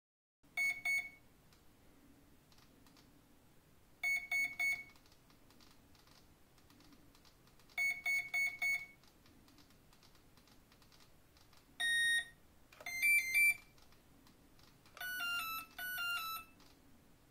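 Flycolor ESC programming beeps sounded through the boat's brushless motor, stepping through the timing values: two short beeps, then three, then four, then one long beep, each group a few seconds apart. A quick run of changing tones follows the long beep, and near the end a falling series of tones signals the end of programming mode.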